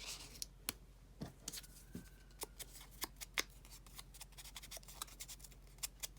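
Faint, irregular small clicks and taps of paper craft pieces being handled on a tabletop.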